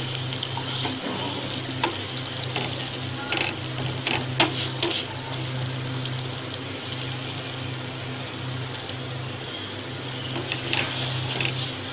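An aloo paratha frying in a little oil in a non-stick pan, sizzling steadily over a low hum. A wooden spatula presses and shifts it, giving a few short taps and scrapes, clustered around four seconds in and again near the end.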